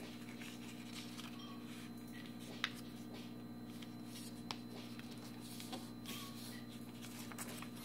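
Origami paper being handled and folded by hand: soft intermittent rustling and creasing, with a sharp click about two and a half seconds in and a lighter one a couple of seconds later, over a steady low hum.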